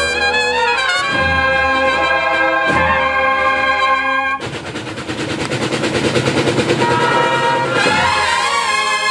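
Processional brass band playing held chords on trumpets and trombones. About four seconds in, the brass gives way to a rapid drum roll that swells in loudness, and the brass comes back in near the end.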